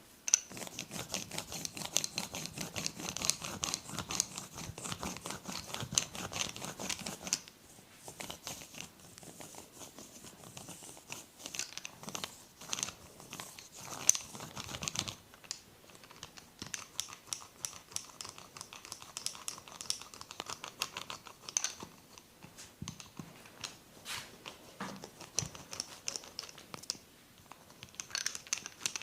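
Hands massaging bare skin: a fast, dense run of rubbing and tapping strokes for about the first seven seconds, then slower, irregular strokes, with one sharp louder click about halfway through.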